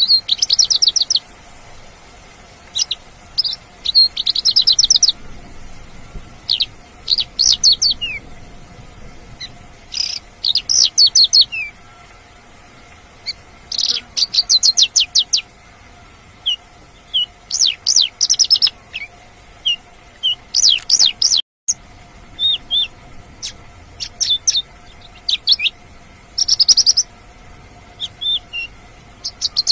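Mongolian lark singing: short phrases of fast, rapidly repeated high notes, a phrase every second or two with short pauses between. The sound cuts out for a moment about two-thirds of the way through.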